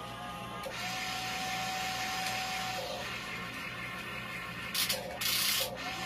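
Small electric motors of a CAT-branded radio-controlled toy excavator whining steadily for about two seconds as the boom moves. Near the end come two short bursts of hissing scrape as the bucket works the sand.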